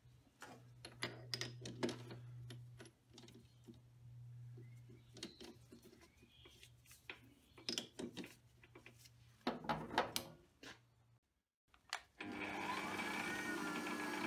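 A stainless steel rod is fitted into a metal lathe's three-jaw chuck and the chuck is tightened with its key, making scattered clicks and knocks over a low steady hum. About twelve seconds in, the lathe is switched on and runs with a steady whine, one tone rising as the spindle comes up to speed.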